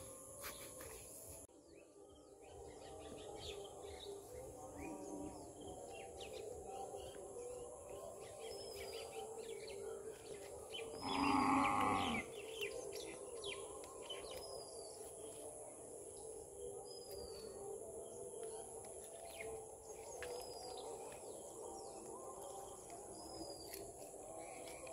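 Rural outdoor ambience: a bird repeats a short, downward-slurred chirp every few seconds over a steady high insect hum, and a cow moos once, loudly, about halfway through.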